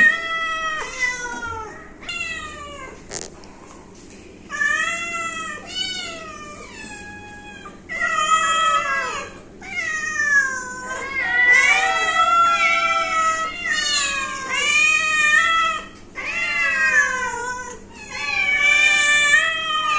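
A crowd of house cats meowing over one another, many overlapping calls that mostly fall in pitch, thinning briefly about two and six seconds in.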